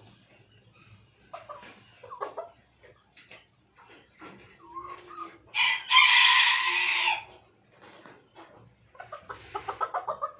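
Appenzeller Spitzhauben chickens clucking in short scattered notes. A rooster gives one loud, harsh crow about five and a half seconds in, lasting over a second, and a quick run of clucks follows near the end.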